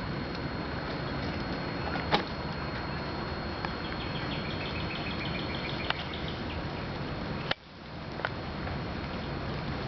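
Steady rushing noise of a flood-swollen river pouring over a dam. From about four seconds in, a bird calls in a quick run of short chirps, and a few sharp clicks come through.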